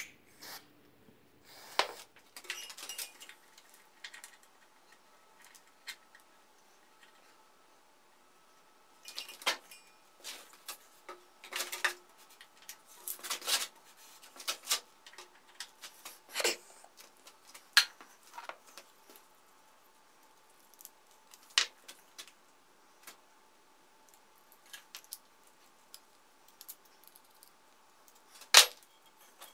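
Scattered clicks, taps and small metallic knocks of hands working on parts and tools, in irregular clusters with quiet gaps between.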